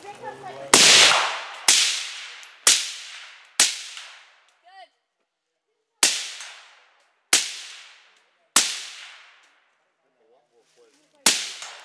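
AR-15 rifle fitted with a Dead Air Sandman S suppressor firing eight shots: four about a second apart, a pause, three more a little over a second apart, and a last shot near the end. Each shot is a sharp crack that trails off in a long echo.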